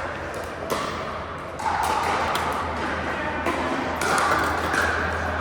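Pickleball paddles striking a plastic pickleball: a few sharp pocks spaced a second or more apart, over steady background noise and a low hum.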